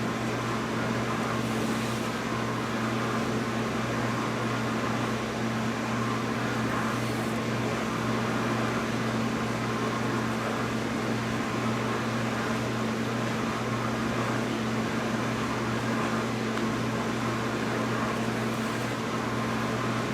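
Steady low hum with an even hiss, unchanging throughout: background room or machine noise, such as a fan or air conditioner running. The hand stitching itself makes no distinct sound.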